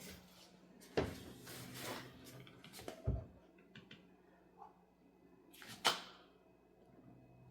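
Household handling noise: a few sharp knocks and clicks, the loudest about six seconds in, with light rustling between, as a detergent measuring cup and bottle are handled.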